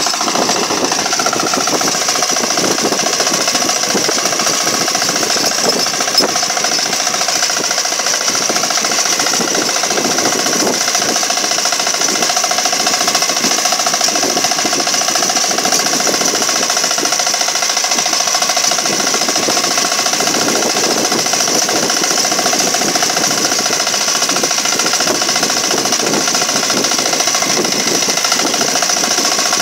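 Small engine of a walk-behind power tiller running steadily under load while its rotary tines churn through grassy soil.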